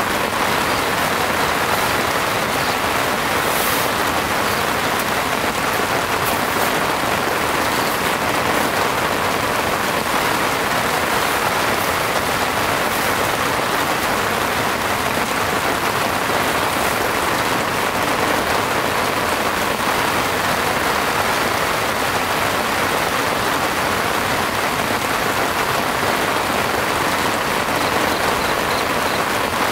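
Heavy rain falling steadily, a dense even hiss of raindrops.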